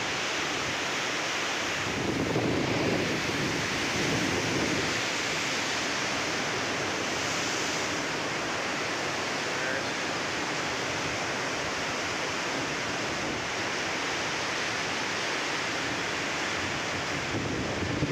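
Typhoon wind and rough, churning harbour water: a steady rush of wind and breaking waves, with wind buffeting the microphone and swelling twice in the first few seconds.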